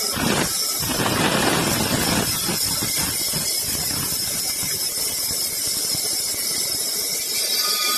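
Sawmill saw running with a steady high-pitched whine, with a louder, rougher stretch of cutting from about half a second to two seconds in.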